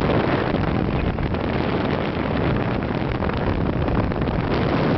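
Steady rush of wind on the microphone from a moving car, with the car's road noise underneath.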